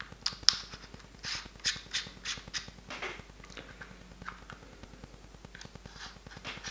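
Hard plastic parts of a DJI Mavic 2 drone remote controller being handled. Irregular small clicks and scrapes follow as the control sticks are fitted, with one sharp click about half a second in.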